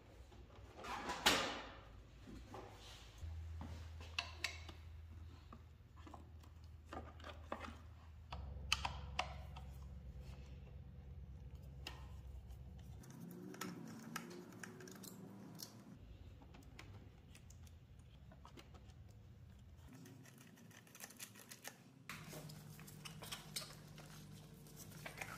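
Faint, scattered clicks, taps and scratches of small parts and tools being handled, with a sharper clatter about a second in and a few more knocks around nine seconds.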